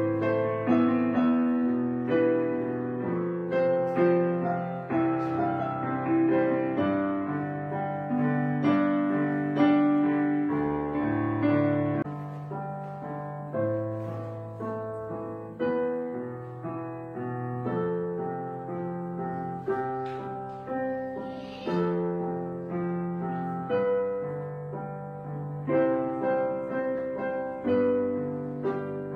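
Gentle background piano music: a slow run of single notes over sustained chords.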